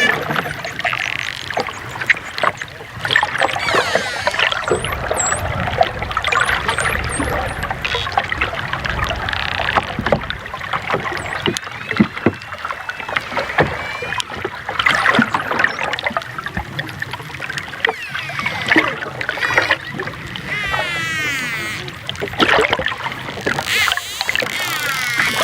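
Dolphins calling: a busy mix of clicks, high gliding whistles and rapid buzzing squawks, with a stronger run of buzzing calls near the end.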